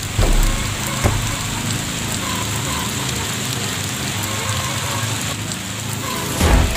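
Steady rain falling on wet ground, with a few low thumps near the start, about a second in and near the end.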